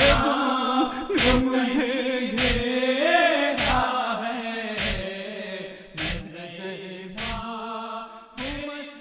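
Men chanting a noha, a Shia lament, kept in time by sharp rhythmic thumps of chest-beating (matam) about once every 1.2 seconds. The chanting grows quieter about halfway through while the beats go on.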